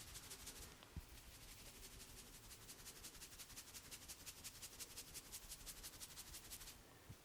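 Faint, fast, even train of hissing strokes of hands working over the hair and scalp in an Indian head massage. The strokes stop shortly before the end, and there is a soft thump about a second in.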